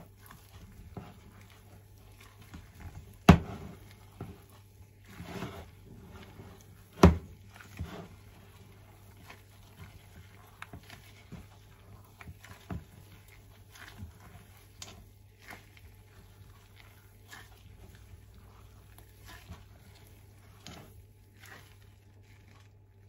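A gloved hand kneading sticky glutinous rice flour dough in a stainless steel bowl, with irregular soft squishes and taps. Two louder knocks come about three and seven seconds in, over a low steady hum.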